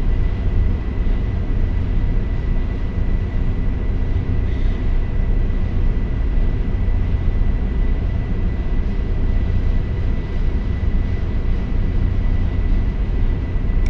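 Daihatsu diesel generator set running steadily under power: a loud, even engine drone with a thin, steady high whine above it.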